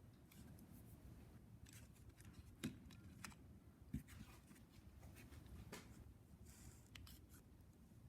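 Near silence in a small room, broken by scattered small clicks and taps, with two sharper knocks about two and a half and four seconds in. These are typical of small parts and tools being handled during carburettor work.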